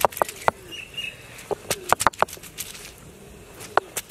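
Peeled garlic cloves being crushed under a stone roller on a flat grinding stone: short bursts of sharp cracking snaps as the cloves split under the stone.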